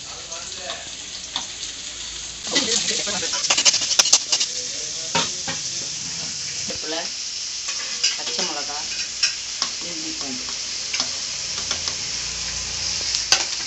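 Chopped onions sizzling in hot oil in a kadai while a spatula stirs them, scraping and knocking against the pan. The sizzle gets louder about two and a half seconds in.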